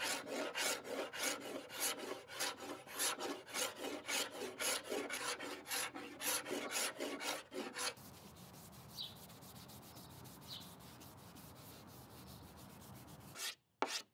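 A hand scraper stripping old finish from walnut veneer: rapid rasping strokes, about three a second, for the first eight seconds. Then a quiet stretch of steady background with two faint bird chirps, before sharp, separate scraper strokes start again near the end.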